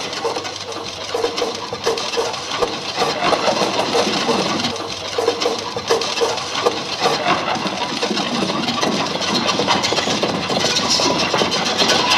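Live electronic music score: a dense, grinding noise texture with no clear melody, growing a little louder near the end.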